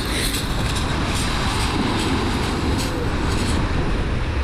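Wind buffeting the microphone in a steady low rumble, over rough surf breaking and washing on a shingle beach.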